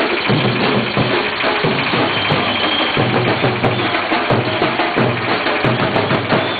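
Music with drums and percussion keeping a steady beat.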